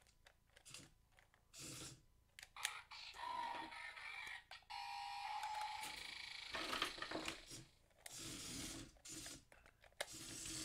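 Battery-powered Dalek figure playing its electronic sound effects faintly from its built-in speaker, with a few clicks of handling and button presses early on.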